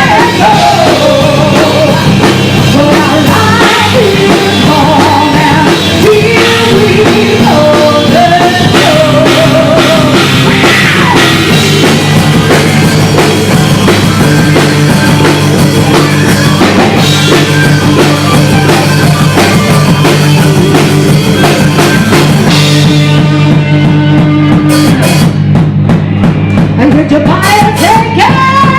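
Rock band playing live, loud, with a drum kit driving it. Near the end the cymbals and high guitar drop out, leaving bass and separate drum hits, before the band builds back up.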